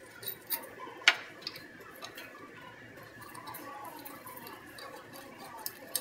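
Light metallic clicks and ticks of a T-handle hex key working the Allen screws out of an Agilent IDP7 scroll pump's housing, scattered and irregular, the sharpest about a second in.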